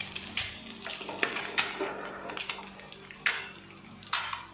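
Butter sizzling and crackling around boiled eggs frying in a non-stick pan. It is broken by a few sharper clicks, the loudest a little past three seconds and again near the end. A steady low hum runs underneath.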